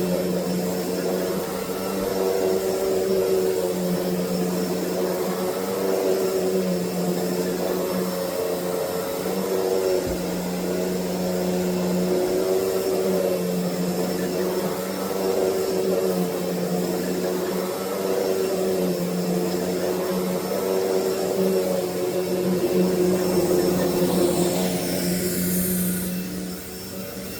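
Hoover Deluxe Elite Rewind upright vacuum cleaner running steadily with a continuous motor hum, its loudness dipping briefly near the end. Its owner says it sounds and runs much better with its new old stock dirt bottle fitted.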